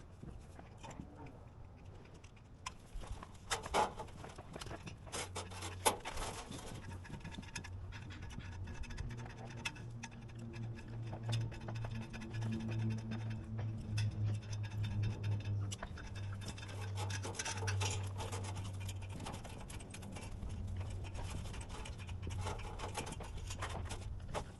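Irregular scraping and knocking, with a low steady hum running through most of it.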